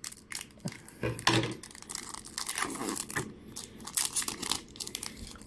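A trading-card pack wrapper being torn open and crinkled, a run of irregular crackles and rustles.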